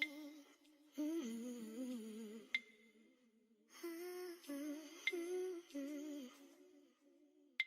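Soft humming of a slow, wavering melody in short phrases, with a sharp click repeating about every two and a half seconds.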